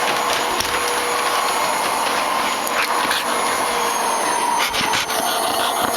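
Vacuum cleaner running steadily with a high whine, used on a golden retriever's coat; a few short knocks come a little before the end.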